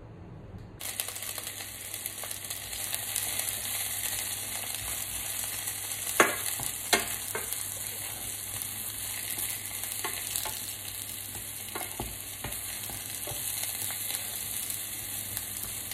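Sliced mushrooms sizzling in olive oil in a steel frying pan while a wooden spatula stirs and turns them. The sizzle comes in abruptly about a second in, with a few sharp knocks of the spatula against the pan, the loudest about six and seven seconds in.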